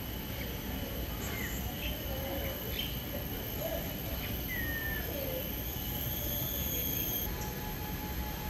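Outdoor garden ambience: a steady low rumble with a few faint bird chirps, one of them a short falling call about four and a half seconds in, over a thin steady high-pitched hum that stops about seven seconds in.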